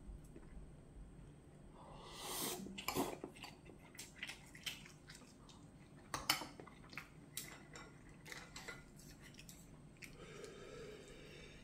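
Metal spoon clinking and scraping against ceramic bowls as rice and ramyeon broth are scooped, in a run of irregular sharp clicks with the sharpest clink about six seconds in. A short noisy swell comes about two seconds in, and chopsticks stir the noodles near the end.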